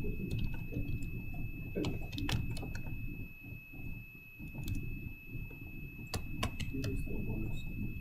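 Typing on a computer keyboard: irregular key clicks, with a short lull in the middle. Underneath runs a steady low room rumble and a faint constant high whine.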